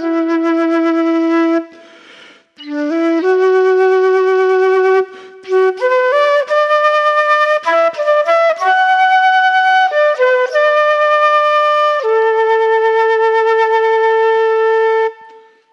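A solo flute-like wind instrument plays a slow, unaccompanied melody of long held notes, with short breaks for breath about two seconds in and again near the end.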